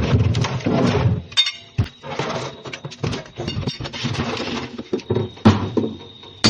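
Irregular metal knocks, clanks and clinks as a scrap refrigerator is broken apart by hand, with a faint steady high ring under them.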